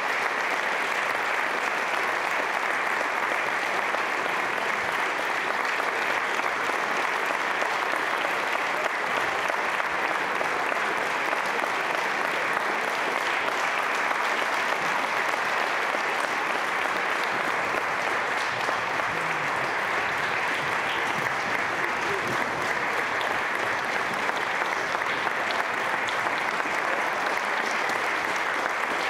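Large audience clapping steadily in a big hall, a long unbroken round of applause.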